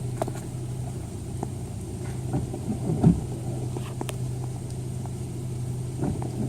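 Truck engine idling steadily, with a few faint clicks.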